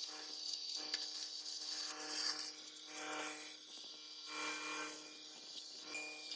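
Tractor with a TUME grain drill sowing wheat: a steady engine hum under scraping and rustling from the drill working through the soil, which swells and fades.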